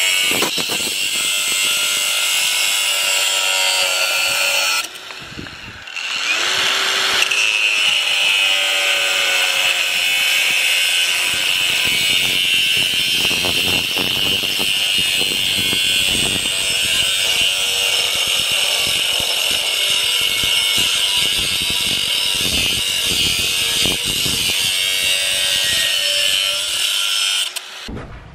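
KEN brushless cordless angle grinder running under load, its disc working against material with a steady high whine. It eases off briefly about five seconds in, picks up again, and stops near the end.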